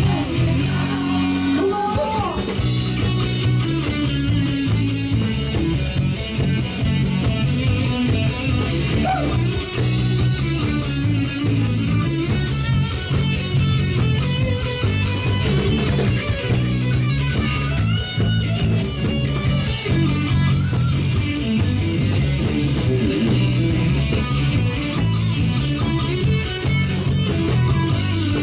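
Live rock band playing an instrumental break: electric guitar over bass and a steady drum-kit beat.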